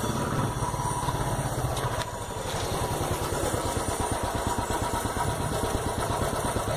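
Royal Enfield Classic 350's single-cylinder engine idling, its exhaust giving a steady, even thump.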